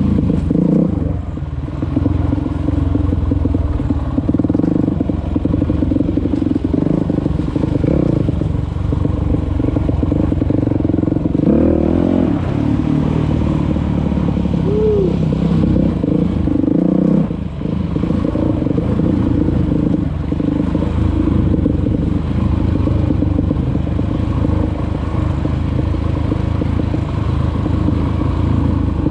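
A vehicle engine running steadily, with some rattling and a brief rise in pitch about halfway through.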